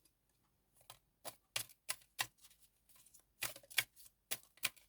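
Tarot cards being shuffled by hand, a series of about ten soft, irregular clicks and slaps as the cards knock together.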